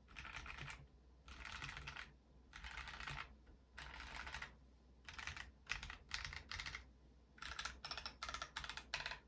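Typing on a Yunzii AL71 aluminium-cased mechanical keyboard with stock Durock Burgundy switches and Drop DCX keycaps: four quick bursts of rapid keystrokes, then a run of separate key presses and short clusters near the end.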